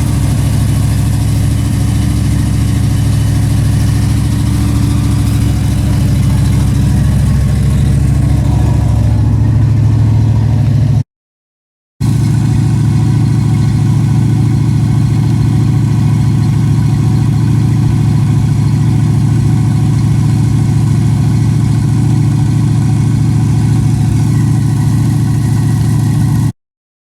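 Chevrolet Nova's engine idling steadily shortly after a start in mild weather. The sound cuts out completely for about a second roughly eleven seconds in and again just before the end.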